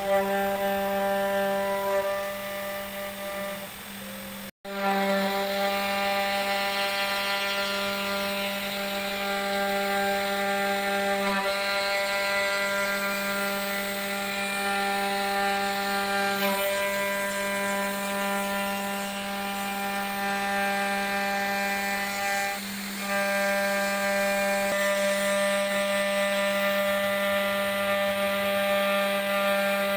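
500 W spindle of a DIY CNC router running with a steady whine while its bit engraves lettering into a wooden board. It breaks off for an instant about four and a half seconds in.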